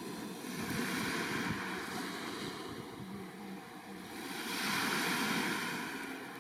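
Black Sea waves washing onto the shore, two surges about four seconds apart, with wind buffeting the microphone.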